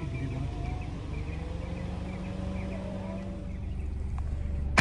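Low, steady rumble of a car running at a crawl, heard from inside the cabin, with faint high chirping repeated through it.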